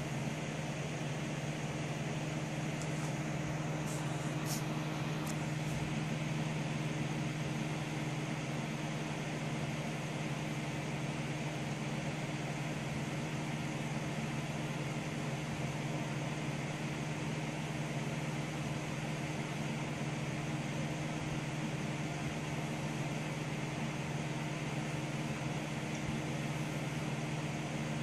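Desktop computer running as it boots: a steady fan whir and low hum, with a few faint clicks a few seconds in.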